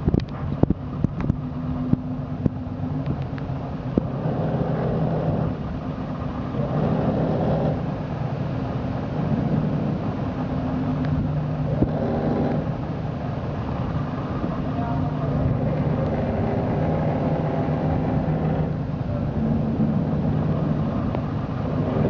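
Boat engine running at low speed, a steady low hum, with a few sharp clicks in the first second or so.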